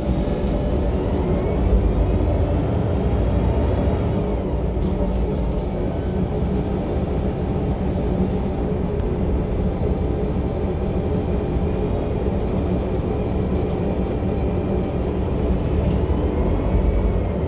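City bus running under way with a loud, steady low rumble from its engine and drivetrain. A fainter whine rises and falls with speed near the start and again near the end.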